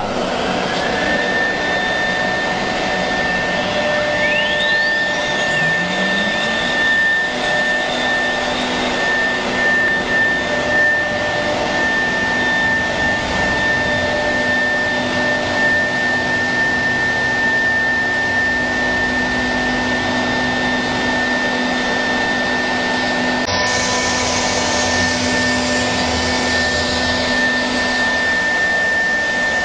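CNC router with automatic tool changer running: a steady high-pitched spindle whine over motor noise. A rising whine about four to six seconds in marks something spinning up. About three-quarters of the way through, the sound turns harsher and hissier.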